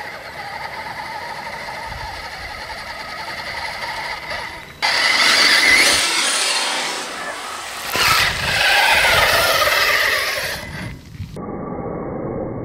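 Radio-controlled 6x6 mud truck's motor and gears whining as it drives in, then loud splashing of water as it ploughs through a puddle, starting suddenly about five seconds in and again about three seconds later.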